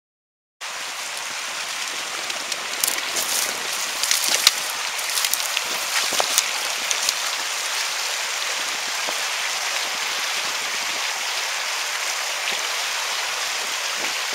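Fast mountain stream rushing over rocks: a steady, hissing water noise that starts abruptly about half a second in. A scatter of sharp clicks and ticks sits on top a few seconds in.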